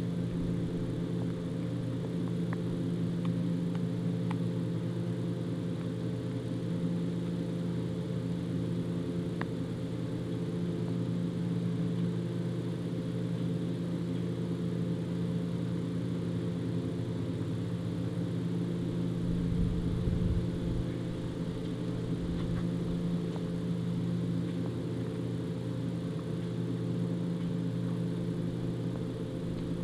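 A steady low machine hum made of several steady pitched tones, with a few faint sharp clicks and a brief low rumble about two-thirds of the way through.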